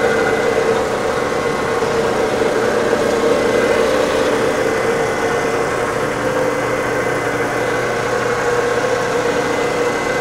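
Herminghausen SR-15 centerless grinder running, its grinding wheel and regulating wheel motors giving a steady hum.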